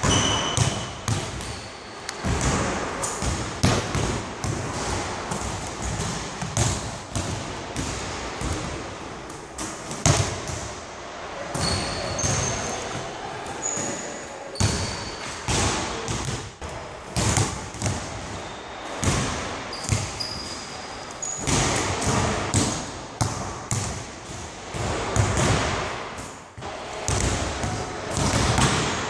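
Basketballs bouncing on a hardwood gym floor: many irregular thuds echoing in a large hall, with short high squeaks now and then.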